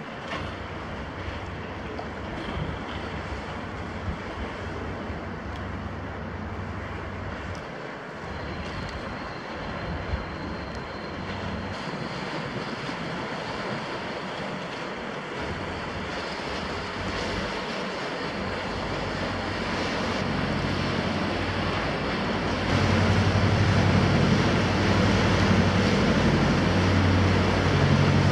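Small motor cruiser passing close on a canal: its engine's low hum runs under the rush of churned water and wind on the microphone, and becomes much louder and throbbing in the last few seconds as the boat comes alongside.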